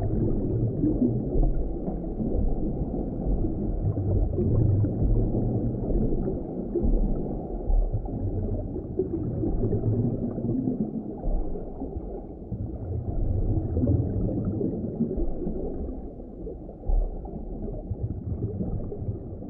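Underwater ambience sound effect: a low, muffled wash of deep water that swells and eases, dropping off somewhat near the end.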